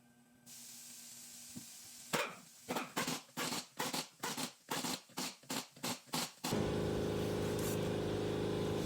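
Car engine cranking with about a dozen rhythmic strokes that speed up slightly, then catching a little past six seconds and running at a steady idle.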